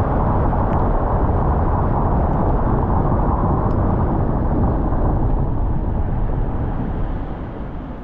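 Steady road noise of a car being driven, with a dense low rumble and hiss that eases off a little near the end.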